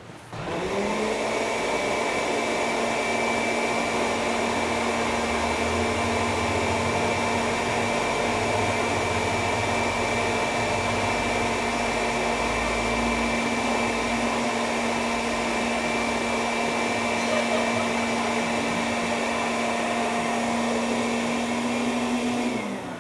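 Electric air pump running steadily as it inflates an air mattress. It spins up within the first second and winds down with a falling pitch just before the end, once the bed is full.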